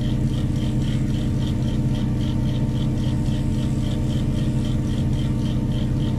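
A large mobile crane's diesel engine running steadily under a lift, with a high-pitched ticking chirp repeating about five times a second over it.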